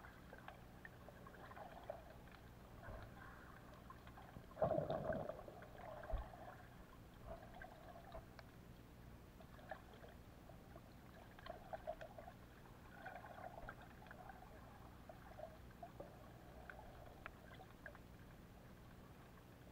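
Underwater ambience picked up by a camera held below the surface while snorkeling: faint scattered crackling clicks and soft muffled swells of water movement, with one louder muffled rush about five seconds in.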